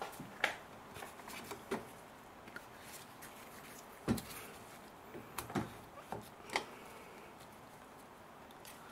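A few scattered light knocks and rubbing sounds of a gloved hand and tool handling parts in a car's engine bay, the loudest knock about four seconds in.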